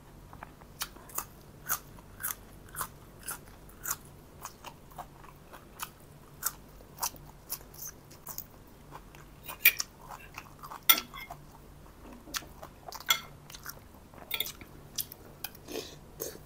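Close-up chewing of crisp raw green onion stalks: sharp crunches about twice a second at first, then less regular.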